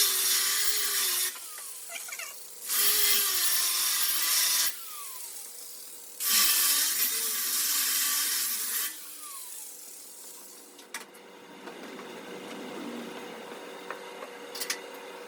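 A grinder grinding on steel welds of a car frame in three bursts of one to three seconds, its motor spinning down with a falling whine after each.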